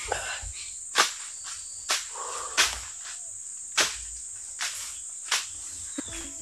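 Insects in the forest make a steady, high-pitched drone. About half a dozen sharp knocks or snaps break in at uneven gaps of roughly a second.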